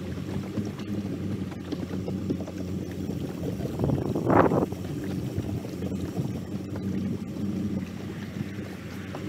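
Boat motor running steadily at low speed with a low hum, under water and wind noise; a brief louder whoosh about four seconds in.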